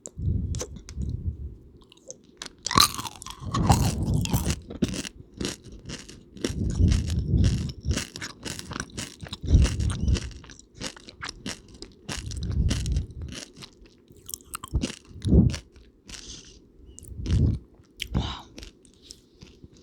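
Close-miked chewing of crunchy peanut butter M&M's candies: sharp crunches and clicks over repeated low mouth sounds every couple of seconds.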